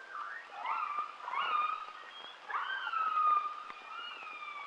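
Orcas (killer whales) calling: a string of whistle-like calls that sweep up and then fall away, several in quick succession, the longest and loudest a drawn-out slowly falling call about halfway through, over faint crackling background noise.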